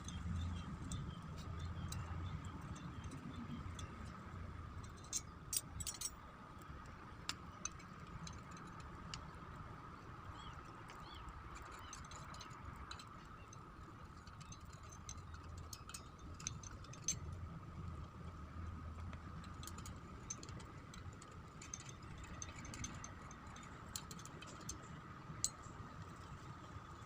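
Scattered light clicks and taps of tools and small parts being handled during brush cutter repair, over a steady faint hum with a thin high whine.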